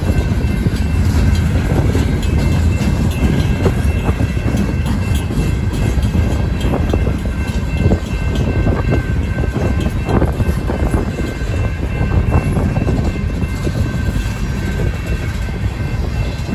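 Freight cars of a CSX manifest train rolling past close by: a steady rumble of steel wheels on rail with clicks and knocks as the wheels cross the joints, and a faint steady high whine over it.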